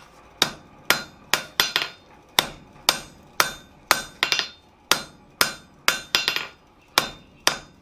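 Hand hammer striking a red-hot bar on an anvil, about two blows a second, each with a short metallic ring. The smith is knocking the corners off the end of the bar at a 45-degree angle to round it.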